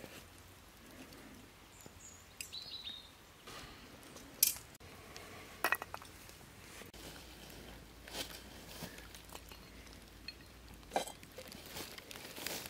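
A few scattered sharp clinks and knocks of dishes and utensils being handled during cooking, the loudest about four and a half seconds in.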